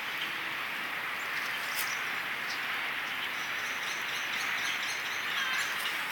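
Outdoor ambience: a steady background hiss with faint bird chirps, a few of them near the end.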